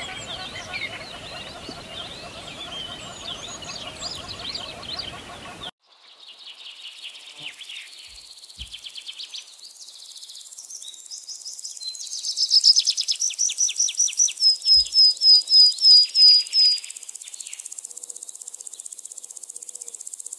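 A dense chorus of many birds chirping and calling cuts off abruptly about six seconds in. It gives way to scattered bird calls and a loud run of quick repeated chirps, followed by a steady high insect drone near the end.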